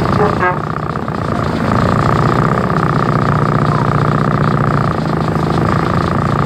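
Vehicle engines idling close by in stopped traffic: a steady drone with a rapid, even pulse and a higher steady hum over it. A brief chirp comes about half a second in.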